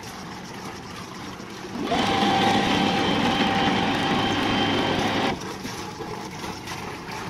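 A motor runs for about three and a half seconds, giving a steady whine over a rushing noise, then starts and stops abruptly.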